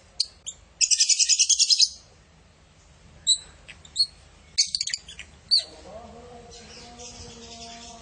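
African lovebirds chirping: a few sharp high chirps, then a fast run of about a dozen chirps packed into a second, then single chirps spaced out. From about six seconds in, a steady low tone with several pitches comes in underneath.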